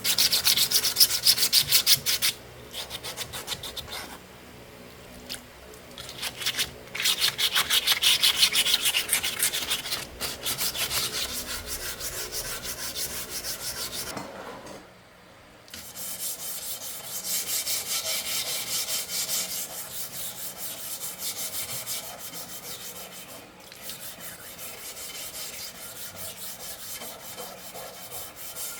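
Fast back-and-forth rubbing strokes of hand cleaning on a rusty tyre-changer part, scraping off rust and grime. The strokes come in several long spells with short breaks, one longer pause about halfway through.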